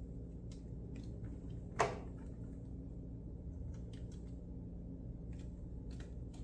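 Faint clicks and rustles of cardboard and foam packaging being handled over a steady low room hum, with one louder short sound about two seconds in.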